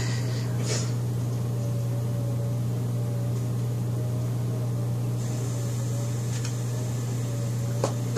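Steady low hum of a running household appliance, unchanging throughout, with a faint wavering higher whine above it and a couple of faint ticks.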